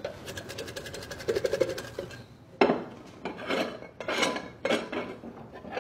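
Paper being crumpled and rustled by hand and set into a plate. First comes a run of fine, rapid crackles, then several louder rustles.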